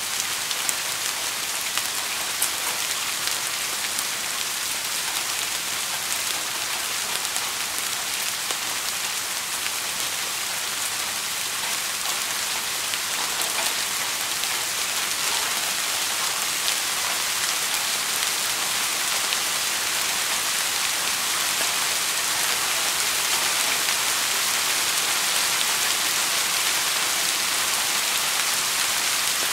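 Steady rain falling: a dense, even hiss with faint scattered drop ticks, growing slightly louder in the second half.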